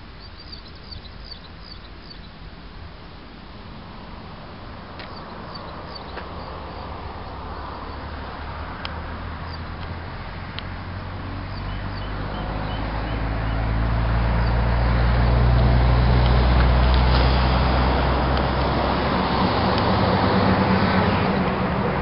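A motor vehicle's engine with a steady low hum, growing gradually louder as it approaches, loudest about two-thirds of the way through and easing only a little after.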